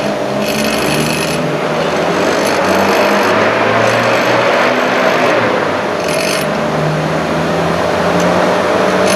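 Metabo DS 200 bench grinder running at speed with a steady hum, while a coin stood on the machine chatters in several short spells as it vibrates: the coin test showing the grinder still has some vibration.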